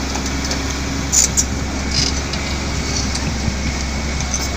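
An engine running steadily with a low rumble, with a few brief sharp clicks or knocks about a second and two seconds in.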